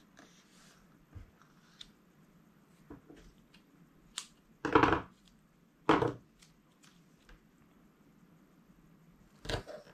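Adhesive tape pulled off its roll in two short, loud rips about halfway through, amid quiet rustling and small taps of paper being handled on a cutting mat. Another brief, louder handling noise comes near the end.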